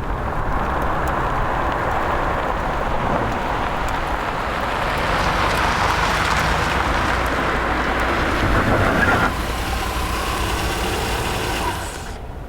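A car driving, with a steady engine rumble and road noise. The sound shifts abruptly about nine seconds in and again near the end.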